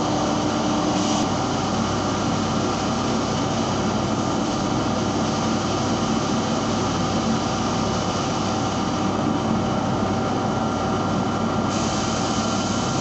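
Steady mechanical drone of running machinery, even in level, with several steady humming tones over a noisy rush.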